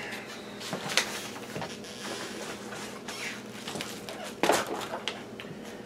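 A few light knocks and clicks, with some rustling, from objects and papers being handled on a workbench; the sharpest knocks come about a second in and again near the middle.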